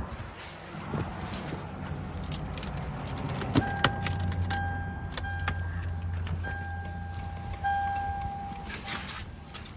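Keys jangling with small handling clicks, and from about three and a half seconds in an intermittent steady electronic chime-like tone that stops and restarts several times before cutting off near the end.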